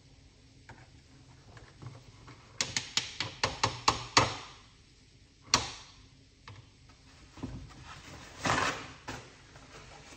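Kitchen utensils being handled: a quick run of about ten sharp taps over a second and a half, then a single louder knock, and a brief rustling scrape near the end.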